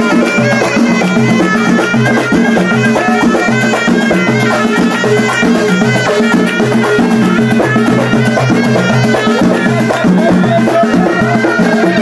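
Live Moroccan wedding-troupe music: goblet drums (darbuka) and frame drums beat a steady rhythm under men's voices singing.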